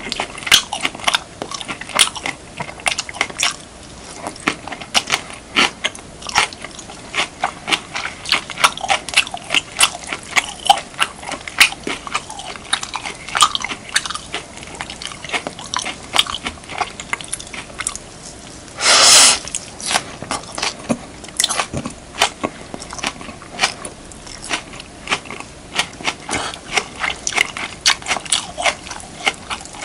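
Close-miked chewing of beef, kimchi and rice: a dense, irregular run of wet mouth clicks and smacks. One louder, longer noisy sound about two-thirds of the way through.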